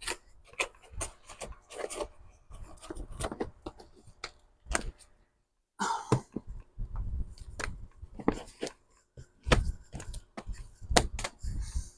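Paper and craft materials being handled and sorted: irregular rustling, with small taps and clicks.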